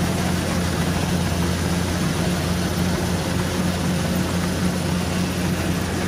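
Rice combine harvester running steadily while cutting, a low engine hum with a faster pulsing note above it over constant machine noise, heard close to the cutting header.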